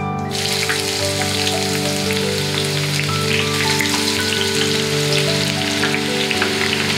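Hot oil sizzling and crackling in a frying pan, a dense steady patter of tiny pops that starts just after the beginning. Soft background music with held notes plays underneath.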